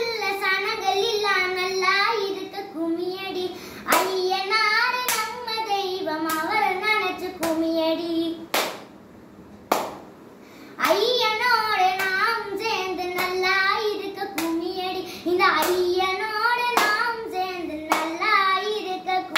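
A young girl singing unaccompanied, clapping her hands about once a second to keep time. The singing breaks off for about two seconds halfway through while the claps go on.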